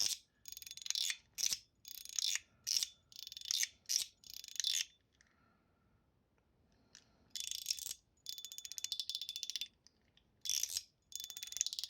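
YOLO Studio Huangcai mechanical fidget slider being slid back and forth: its titanium middle plate glides between Teflon sides with a spring-and-ball mechanism, giving short bursts of fast clicking about twice a second. There is a quiet pause of about two seconds midway, then a longer run of strokes.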